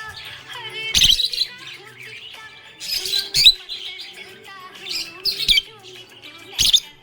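Budgerigar chirping and warbling, in bursts of sharp high chirps about a second in, around three seconds, around five seconds and near the end, over a steady softer chatter.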